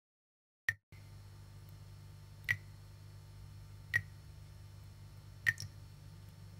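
Water drops falling one at a time from a kitchen tap into a stainless steel sink: four sharp drips about a second and a half apart, over a faint low hum.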